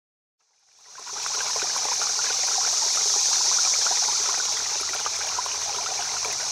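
Flowing stream water running and babbling steadily, fading in about a second in.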